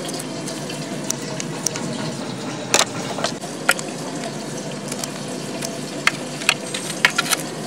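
Scissors snipping spinach stems: sharp clicks, irregular and some in quick pairs, over a steady hiss.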